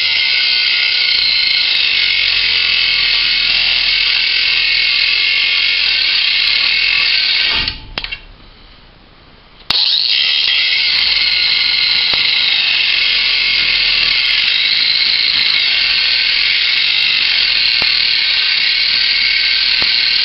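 Ryobi One+ 18-volt cordless angle grinder (P420) running with a cut-off disc, cutting into steel. It stops about 8 seconds in, starts again under two seconds later, and runs on.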